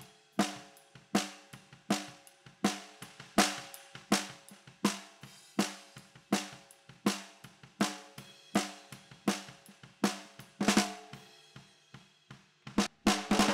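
Recorded acoustic drum kit playing a steady groove, with kick and snare hits about every three-quarters of a second under cymbals and hi-hat, and a quick fill near the end. The kit is played back through Vertigo Sound's VSM-4 harmonic saturation plugin.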